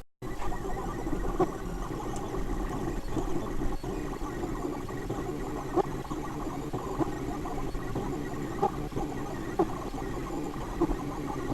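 3D printer running: a steady fan and motor whir, with short tonal chirps every second or few from the stepper motors as the print head moves.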